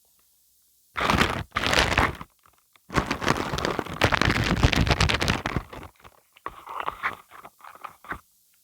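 Dried wood glue (PVA bond) film being peeled off a wide surface, crackling and crunching in bursts: a short burst, a longer stretch of dense crackling, then smaller crackles near the end.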